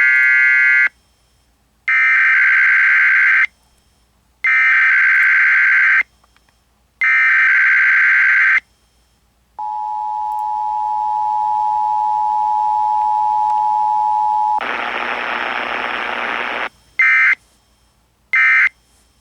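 Emergency Alert System test over AM radio. Repeated bursts of the screechy digital SAME header tones come first, then the steady two-tone attention signal for about five seconds. About two seconds of static hiss follow, then short end-of-message data bursts near the end.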